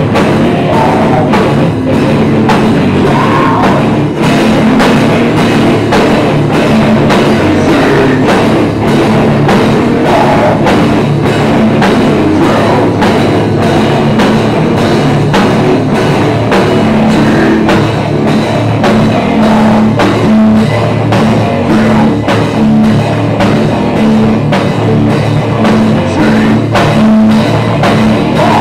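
Live heavy metal band playing loud: distorted electric guitar and bass over a pounding drum kit.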